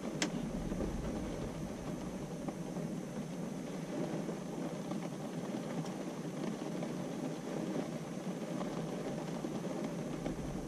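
Steady low background noise without any distinct pitch, with one short sharp click just after the start.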